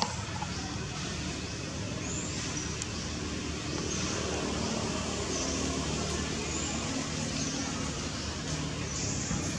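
Outdoor background noise: a steady low rumble and hiss, with faint short high chirps about once a second.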